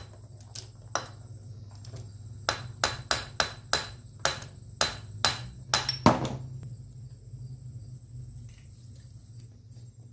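A hammer knocking a part loose on a 140cc pit bike engine: a few sharp metal strikes, then a quick run of about ten blows. The last blow, about six seconds in, rings. A steady low hum runs underneath.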